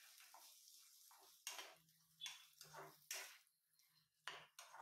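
Steel spatula stirring and scraping a stir-fry of chopped onion, green chillies and curry leaves in a nonstick pan, heard as a string of short, faint scrapes, about six of them in the last three seconds or so.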